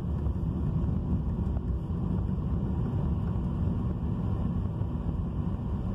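Steady low rumble of a car's engine and tyres, heard from inside the cabin while driving along a street.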